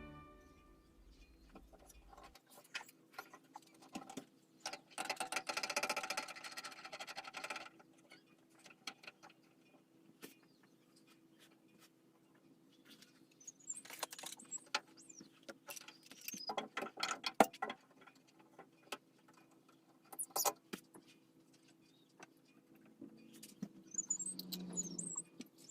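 Metal clamps being fitted and tightened around a cello body: scattered clicks, knocks and light metallic clinks, with a couple of longer rattling stretches of a second or two.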